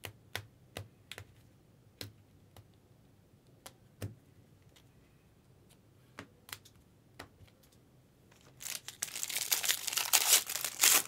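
Scattered light clicks and taps of trading cards and plastic card holders being handled, then, from about eight and a half seconds in, a loud, dense crinkling of plastic wrap being torn off a box of baseball cards.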